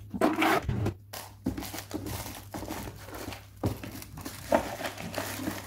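Rustling and light clicking of costume jewelry (necklaces, chains, rings) being moved about by hand in a drawer organizer tray, with a few sharper knocks.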